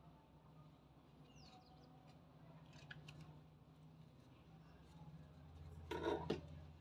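Stiff paper tube handled on a table: a brief crackle with a couple of sharp taps about six seconds in, over a faint low hum and a few faint bird chirps.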